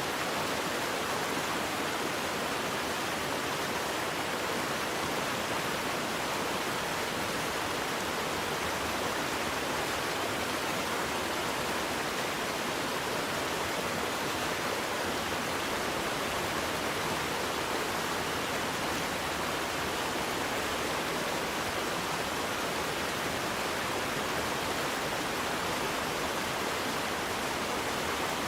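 Waterfall: a steady rush of falling water, even and unbroken, with no distinct splashes.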